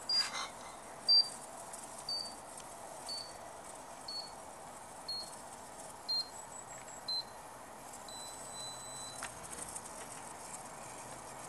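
RC transmitter flight timer counting down: short, high electronic beeps once a second, each a little lower in pitch, then one longer tone about eight seconds in as the timer runs out. A brief rustle at the very start.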